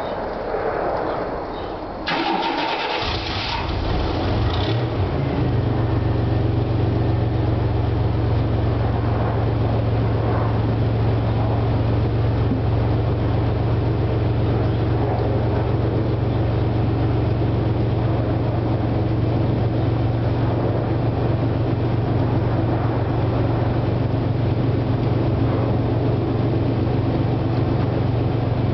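1992 Chevy Astro's 4.3-litre V6 firing up from cold about two seconds in, then settling into a steady idle heard at the exhaust.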